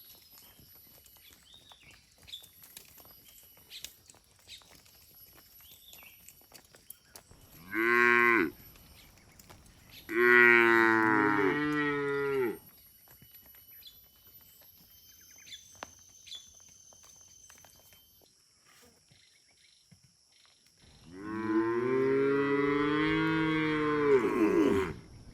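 Cattle mooing: three calls, a short moo about eight seconds in, a longer one a couple of seconds later, and a long drawn-out moo near the end. Faint clicks and rustling between the calls.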